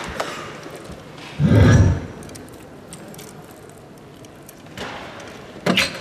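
A soft-tip dart striking an electronic dartboard near the end, a sharp hit that scores a single 20, after a louder low thud about a second and a half in.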